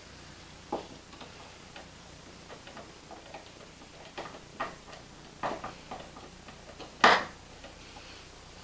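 Irregular small clicks and taps of a screwdriver and metal screws against a smart light switch's mounting strap as it is tightened into the wall box, with one louder knock about seven seconds in.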